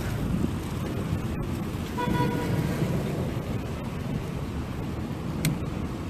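Steady low rumble of wind on the phone's microphone mixed with road traffic noise, with a short horn-like tone about two seconds in.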